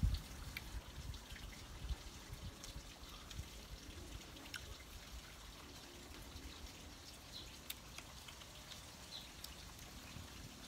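Faint trickling water with scattered small clicks and ticks over a low rumble.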